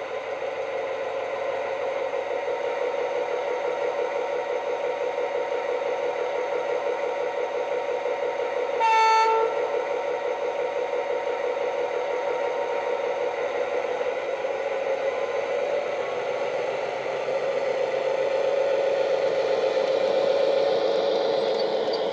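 Model Irish A Class diesel locomotive's DCC sound decoder playing a diesel engine running steadily through the model's small onboard speaker, with one short horn blast about nine seconds in. The engine sound grows a little louder near the end.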